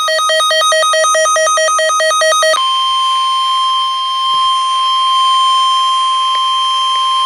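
Electronic alert tones for a broadcast emergency alert: a rapidly pulsing buzzer-like beep, then about two and a half seconds in it switches to one long steady pure tone, the weather radio warning alarm tone that comes before the spoken severe thunderstorm warning.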